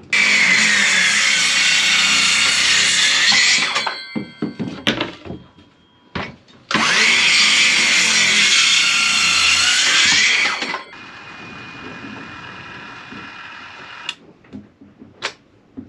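Handheld circular saw making two crosscuts through wooden strips, each about four seconds long, the blade's pitch sagging as it bites into the wood and rising again before the cut ends. A quieter steady whir follows for about three seconds near the end.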